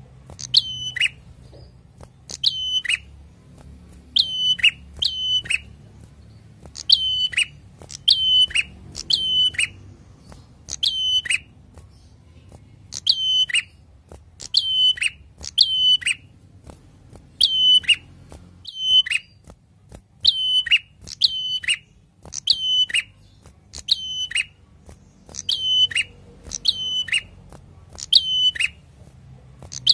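Caged ashy tailorbird singing, repeating the same short phrase over and over, about once a second and often in quick pairs: each phrase is a fast run of very high notes that drops into a loud clear whistle and slides down in pitch.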